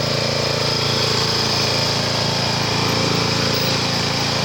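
Riding lawn mower's small engine running steadily, with an even drone that holds the same pitch throughout.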